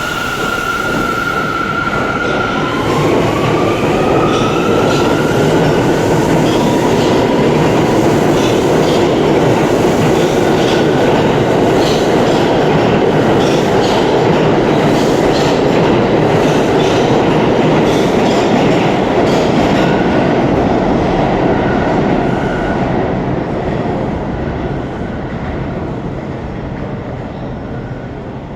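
New York City subway train pulling out of the station. Its motor whine glides upward as it picks up speed, and the wheels clatter over the rail joints with a heavy rumble that fades over the last few seconds as the train leaves.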